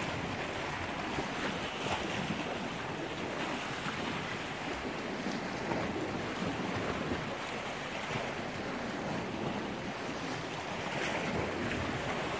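Sea washing against the shore rocks, with wind on the microphone: a steady hiss of surf.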